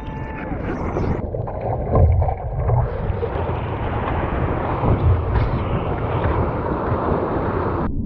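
Seawater sloshing and splashing around a surfboard close to the microphone, with wind buffeting the microphone and a deep rumble underneath. The sound cuts off abruptly at the very end.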